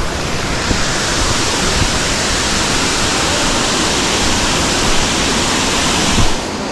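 Bijoux Falls waterfall rushing with a loud, steady roar of falling water that cuts off sharply near the end.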